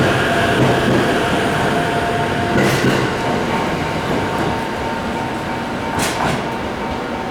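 Limited express train pulling out of the station, its running noise along the track easing slowly, with two short sharp bursts of noise about three seconds apart.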